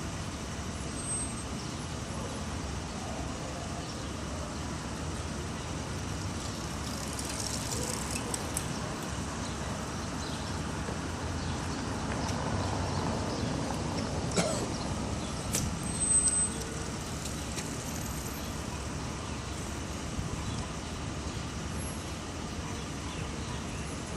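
Steady city traffic noise, with a vehicle swelling past about halfway through and a few sharp clicks and knocks just after it.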